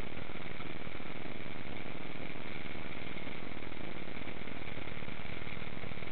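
Steady rushing of flowing water around an inner tube in a lazy river, an even, unbroken wash of noise.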